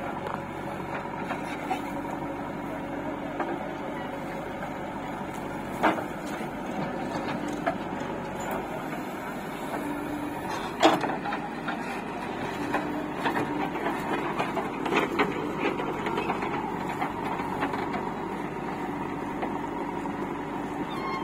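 Diesel engine of heavy earth-moving machinery running steadily, with occasional sharp knocks, the loudest about eleven seconds in and another about six seconds in.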